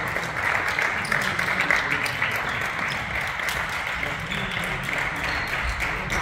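Spectators clapping, a dense steady patter of many hands, with voices mixed in.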